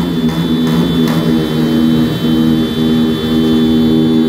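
Motorcycle engines running steadily at a constant speed.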